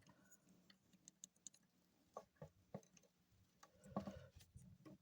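Near silence broken by faint, scattered plastic clicks and taps from a transformable robot action figure being handled, with a small flurry about four seconds in.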